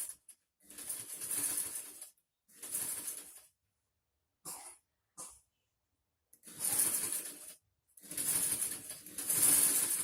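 Electric sewing machine running in repeated bursts as the foot pedal is pressed and released. There are longer runs of one to two seconds and a couple of brief blips, each stopping abruptly.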